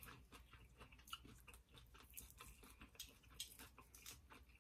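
Faint chewing and wet mouth clicks from a person eating seafood, with irregular small ticks several times a second and a few slightly louder ones.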